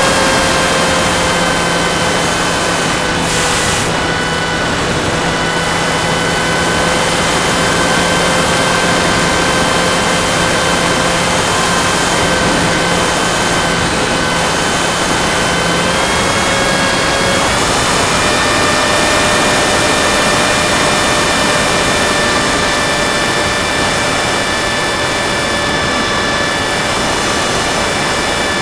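Electric motor and propeller of a Go Discover FPV model plane running steadily in flight, picked up by its onboard camera: a steady whine under heavy wind hiss. The whine's pitch steps up slightly twice around the middle.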